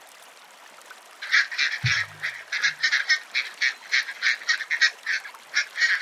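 Duck quacking: a rapid run of short, rasping quacks, about four a second, starting about a second in and carrying on to the end.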